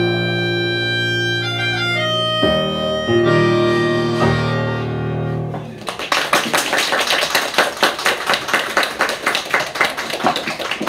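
A melodica and a digital piano play the closing bars of a song and end on a held chord about five and a half seconds in. An audience then claps.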